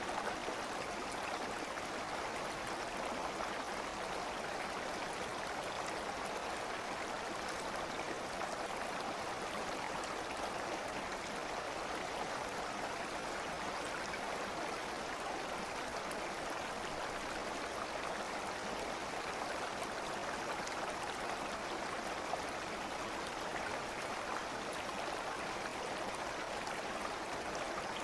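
A stream of water flowing and burbling steadily, with no breaks or changes.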